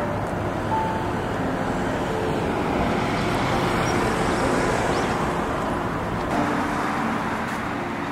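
Road traffic noise from cars passing on a street beside the sidewalk: a steady rush that swells a little in the middle.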